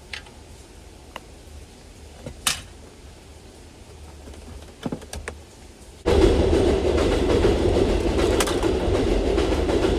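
A few light clicks and knocks, then about six seconds in a loud, steady mechanical rumble starts suddenly and keeps going.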